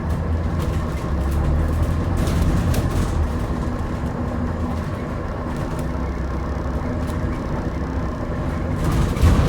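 Alexander Dennis Enviro400H City hybrid double-decker bus on the move, heard from inside the saloon: a steady drivetrain hum with low tones, light rattles, and a louder rush of noise about nine seconds in.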